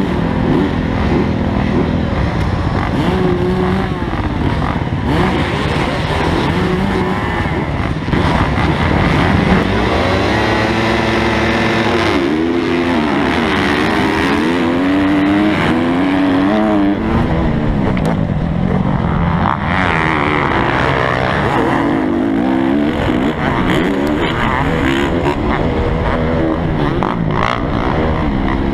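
Motocross dirt bike engine revving hard under race acceleration, its pitch climbing and dropping again and again as it works through the gears, with other dirt bikes running close by.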